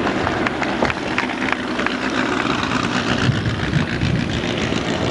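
Stock car engine running as the winged racing car drives past close by, its low rumble strongest a little past the middle, with a few sharp clicks around the first second.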